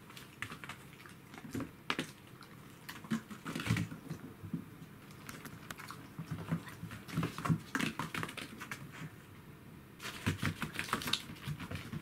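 Pets' claws clicking and scrabbling on a wooden floor in irregular bursts of quick taps.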